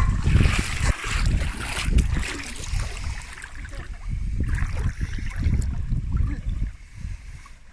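Water splashing and lapping, with wind buffeting the microphone as a heavy low rumble.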